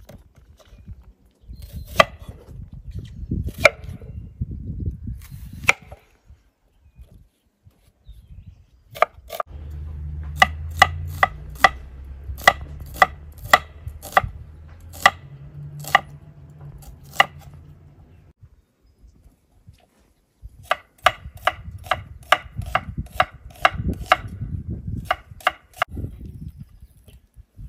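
Chef's knife slicing an onion on a wooden cutting board: sharp knocks of the blade meeting the board, a few spaced strokes first, then runs of about two to three cuts a second with a short pause between them.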